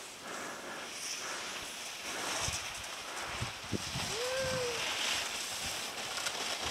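A snowboard sliding and scraping over packed snow, a steady hiss with some wind on the microphone. About four seconds in there is one short call that rises and falls in pitch.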